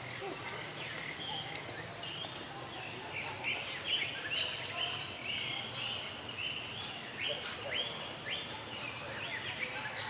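Many short high-pitched chirping animal calls, several a second and overlapping, over a steady outdoor background hiss.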